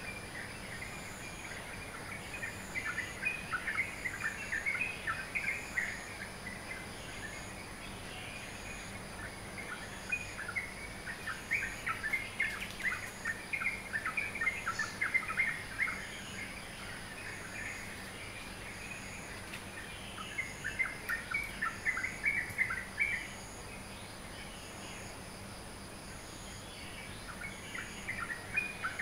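Dawn chorus of birds chirping in rapid twittering bursts of a few seconds each, with short lulls between, over a steady high-pitched background hiss.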